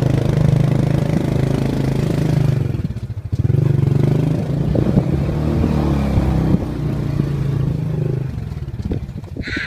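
Small motorbike engine running under way on a rough, narrow road, its steady note dipping briefly about three seconds in and easing off near the end, where the bike clatters over the bumpy surface.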